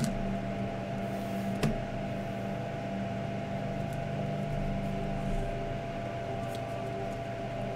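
Steady electrical hum, with a light click of cards being handled about two seconds in and a few faint ticks near the end.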